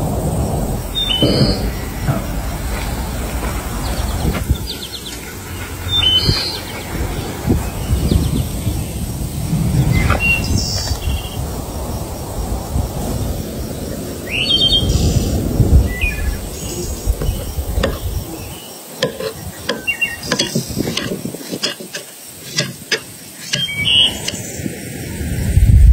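Birds chirping on and off over a steady low rushing noise. About three quarters of the way through, the rushing drops away and a quick run of sharp clicks and knocks takes over.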